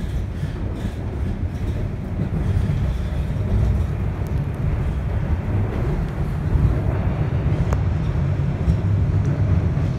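Toronto Rocket subway train running at speed, a steady low rumble of wheels on rail heard from inside the car.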